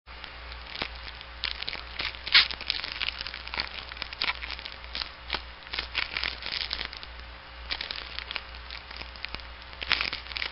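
Irregular crackling and rustling, with many sharp clicks and a few louder snaps, over a steady low hum. It starts and cuts off abruptly.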